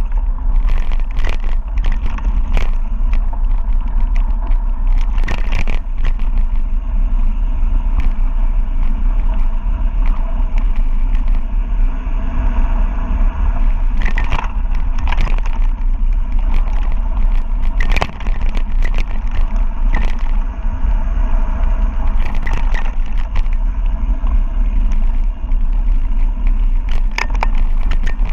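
Mountain bike descending fast on a rough dirt road: a steady low rumble of wind on the camera's microphone and tyres crunching over dirt and stones, with frequent sharp rattles and clacks as the bike jolts over rocks.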